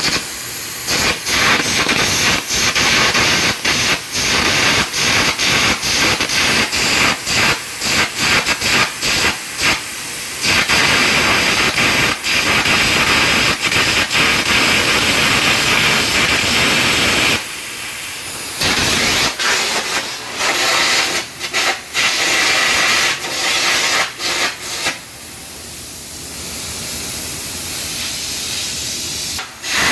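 Air carbon arc gouging: a loud, harsh hiss from the compressed-air jet and arc, cut by many brief dropouts as the arc stutters. It falls quieter for a moment around the middle and again near the end.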